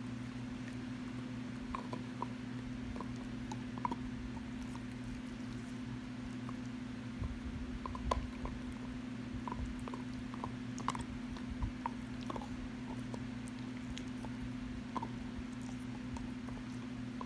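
A pit bull gnawing on a hard chew bone, giving irregular short clicks and scrapes of teeth on the bone, a little louder about 8 and 11 seconds in, over a steady low hum.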